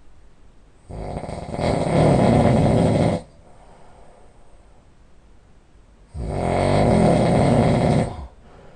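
A man snoring loudly: two long snores about three seconds apart, each lasting about two seconds, the first growing louder partway through.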